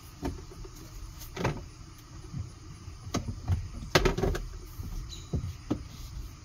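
A K&N cabin air filter being pushed into the plastic cabin filter housing behind the glove box of a 2023 Kia Niro: scattered plastic clicks, knocks and scraping as it is worked into its slot, with the loudest clatter about four seconds in.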